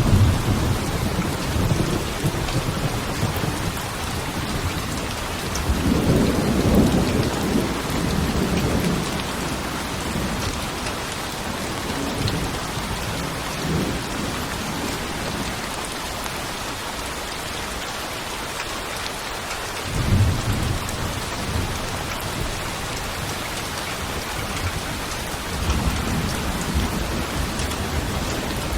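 Steady rain with several low rolls of thunder, the longest a few seconds in and others later on.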